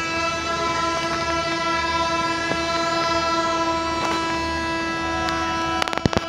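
Railway locomotive horn held in one long, steady blast, with a few sharp knocks near the end.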